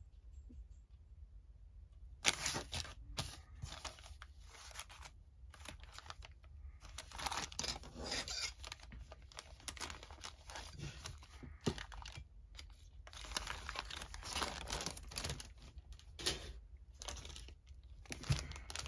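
Thin clear plastic bag crinkling and rustling in irregular bursts as plastic model-kit parts trees are handled and slid out of it, starting about two seconds in.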